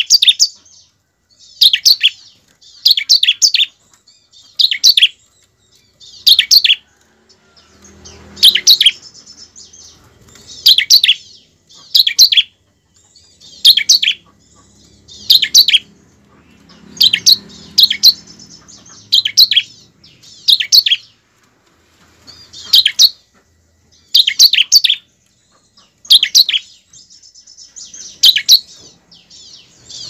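Bar-winged prinia (ciblek) giving short, sharp bursts of rapid chattering call notes, high-pitched, repeated about every one to two seconds. It is a lure call meant to set other ciblek singing.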